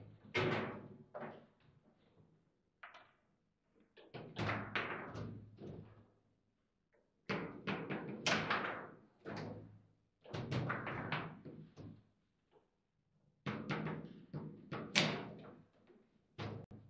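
Foosball game in play: flurries of sharp knocks and clacks as the ball is struck by the plastic figures and bounces off the table's walls, in several bursts with short pauses between.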